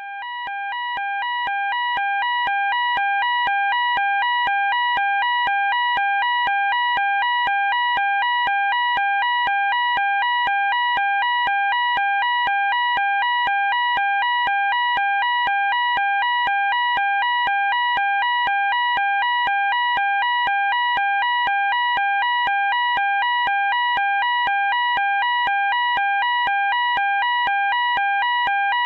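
Electronic fire alarm sounding continuously, a two-tone hi-lo warble that switches rapidly and evenly between a lower and a higher pitch. It fades up over the first few seconds, then holds at a steady loud level.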